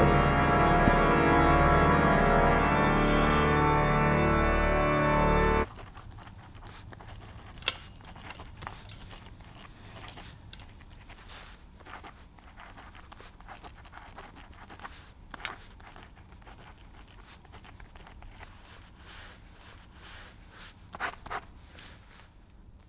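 Music of held, sustained chords that cuts off abruptly about six seconds in. After it comes a quiet room with faint pen scratching and a few soft clicks as a pen writes on a memo pad.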